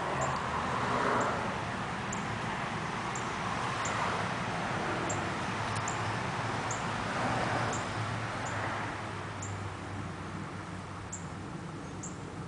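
Outdoor yard ambience: a steady rushing hiss that swells and fades a few times over a low hum, with a short, high chirp repeating irregularly about once a second.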